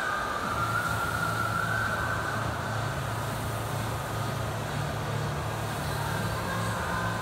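Air rowing machine's fan flywheel whirring steadily under a hard rowing pace, with a low hum. A faint, slowly wavering high tone rises over it near the start and again near the end.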